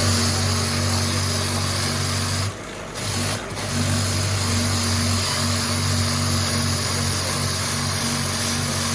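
A motor-driven machine running steadily with a low hum over a hiss. It cuts out briefly about two and a half seconds in and again about a second later.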